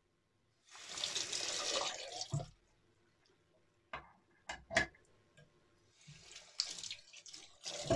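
A tap runs into a sink in two short spells, about a second and a half each, with a few sharp knocks in between: a safety razor being rinsed between shaving passes.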